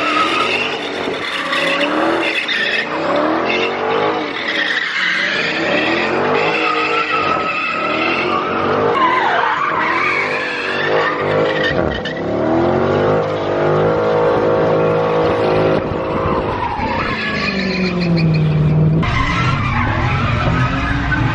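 Car engine revving hard and rising and falling over and over while the rear tyres squeal and skid through donuts, heard from inside the car. Near the end the revs fall away to a low steady idle.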